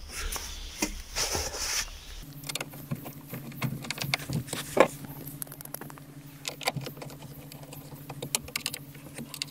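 Screwdriver turning the metal mounting screws of a car radio head unit into its dashboard bracket: scattered small clicks and scrapes. A steady low hum comes in about two seconds in.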